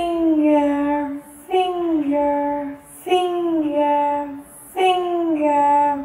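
A child's voice singing the word "finger" over and over, four times in a row, each about a second and a half long and sliding down in pitch.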